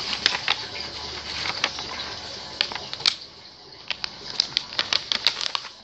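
Paper being folded and creased by hand: irregular crisp crackles and clicks over a soft rustle.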